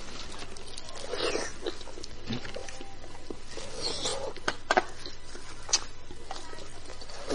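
Close-up eating sounds of beef bone marrow: wet chewing and slurping, with a few sharp clicks about four and a half to six seconds in.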